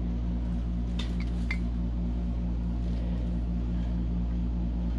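A steady low mechanical hum with a fast, even throb, and a couple of light clicks about a second in.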